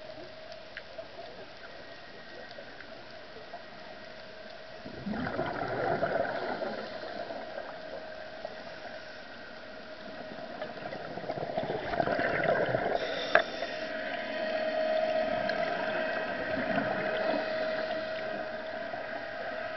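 Heard underwater: the steady whine of an electric diver propulsion vehicle's motor and propeller, growing louder near the end as the scooter comes close. Scuba exhaust bubbles gurgle loudly about five seconds in and again around twelve seconds.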